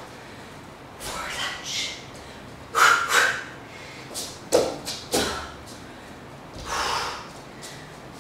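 A woman's sharp, forceful exhalations during a kickboxing drill of lunges, hook punches and sprawls: several hard breaths a second or so apart, the loudest about three seconds in.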